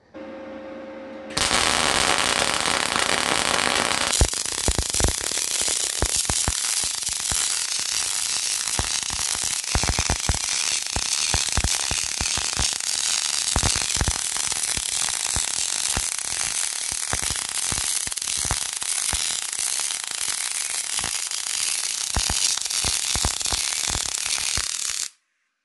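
MIG/MAG gas-shielded welding arc on steel sheet. It strikes about a second in with a steady hiss, then settles into dense, irregular crackling for about twenty seconds, and cuts off abruptly just before the end.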